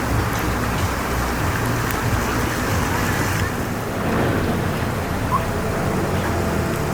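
Tour boat's outboard motor running steadily, under a constant rushing hiss of water.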